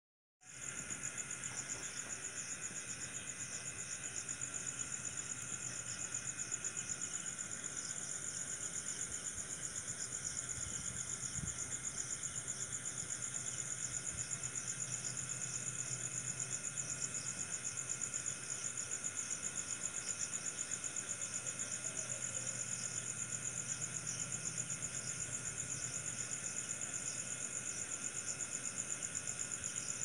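Chorus of night insects such as crickets chirping steadily in high, rapid pulses, starting a moment in, with fainter lower-pitched trilling beneath.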